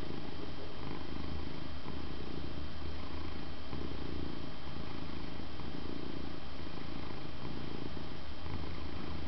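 A large, old 12 kg domestic cat purring steadily while lying at rest, the purr swelling and fading with its breathing about every second and a half.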